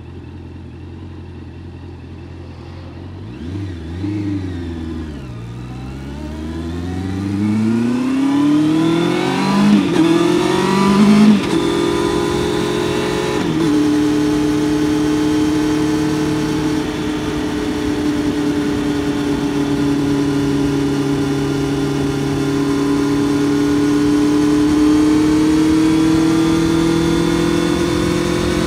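Honda CBR650F's inline-four engine idling, blipped once a few seconds in, then pulling away with the revs rising fast. Three quick upshifts, about ten, eleven and a half and thirteen and a half seconds in, each drop the pitch, and then it cruises at a steady speed, the revs creeping up slightly near the end.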